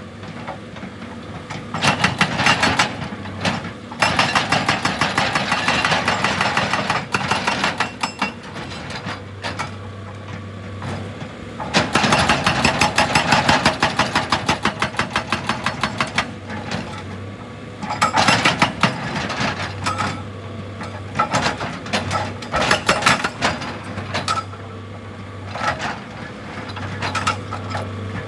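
Excavator-mounted hydraulic hammer pounding rock in bursts of rapid, evenly spaced blows lasting a few seconds each, with the machine's diesel engine running steadily between the bursts.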